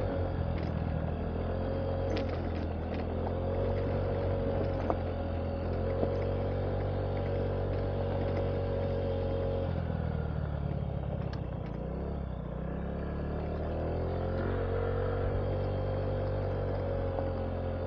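Honda Ruckus scooter engine running at low trail speed on a gravel two-track. Its note drops about ten seconds in as the throttle eases off, then picks up again a few seconds later.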